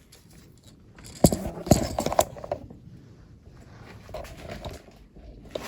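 Handling noise as a camera is set back onto its stand: a sharp knock about a second in, then a short cluster of clicks and rattles, with lighter clicks later.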